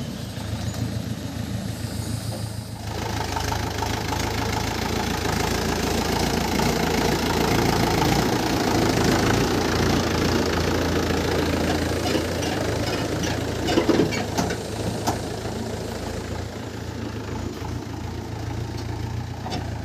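Tractor's diesel engine running with a steady low drone. Rattling noise builds up about three seconds in, with a few sharp knocks later on.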